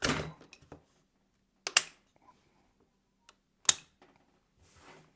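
AR-15 upper and lower receivers being fitted back together: three sharp metal clicks and knocks, the loudest about three and a half seconds in, then a short soft rustle near the end.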